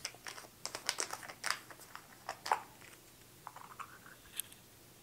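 Plastic screw cap on a bottle of car-detailing spray being twisted open by hand: a quick run of small clicks and crackles for about three seconds, then a few more clicks a second later.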